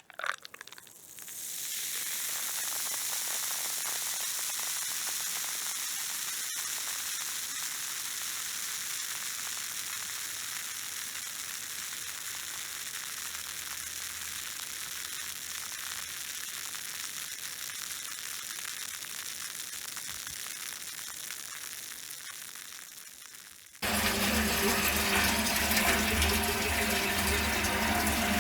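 Beer fizzing in a glass, a steady high hiss of bursting bubbles that slowly fades. Near the end it cuts off suddenly and a louder, humming, machine-like sound takes over.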